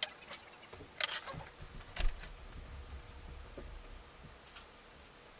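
Handling noises: a glass set down on a wooden desk, rustling and a few light knocks as a person gets up and moves away with a bowl. The loudest is a sharper knock about two seconds in, followed by low thuds for a couple of seconds.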